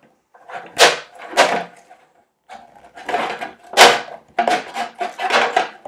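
Plastic tip-up's reel lever being pulled off its post and snapped onto the other side: a string of sharp plastic clicks and knocks, the loudest about four seconds in.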